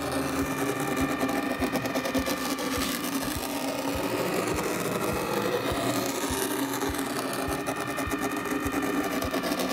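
Sandscript sand drawing machine's motor and drive mechanism running at its top speed: a steady mechanical whir with irregular ticking a few times a second. At this speed it is noisy enough to be annoying; it runs much quieter when slowed down.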